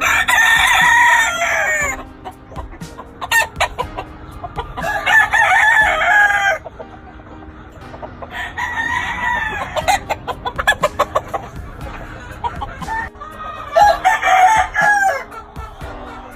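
Gamefowl roosters crowing, four long crows one after another, with short clucks between them.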